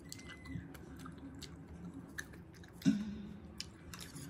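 A person chewing food, soft mouth clicks and smacks, with one sharper, louder sound about three seconds in.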